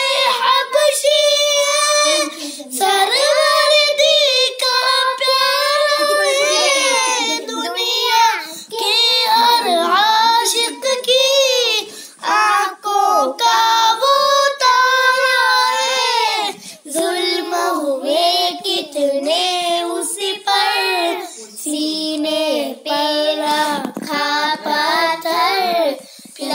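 Children singing an Urdu naat together, unaccompanied high voices in phrases with short breaths between them.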